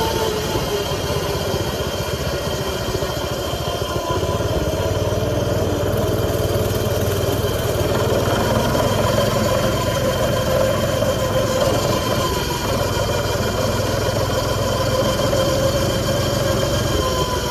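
X1 pocket bike's small two-stroke engine running steadily, its pitch rising and falling slightly.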